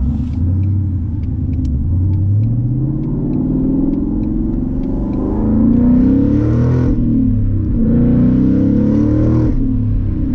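Ford Mustang with a straight-piped MBRP race exhaust accelerating, heard from inside the cabin: the revs climb steadily, then the exhaust gets louder and rougher before dropping back at a shift about seven seconds in, climbs again and drops near the end. A turn signal ticks over the first few seconds.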